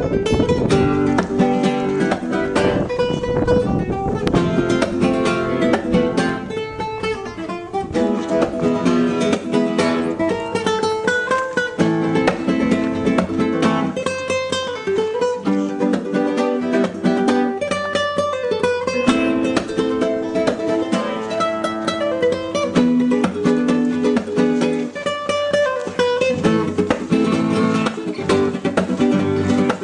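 Background music: fast plucked acoustic guitar in a flamenco style.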